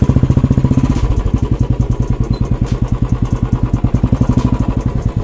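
Royal Enfield single-cylinder engine running at low revs with a steady, quick beat of exhaust pulses as the bike crawls over a rough dirt track. The beat drops slightly in pitch about a second in.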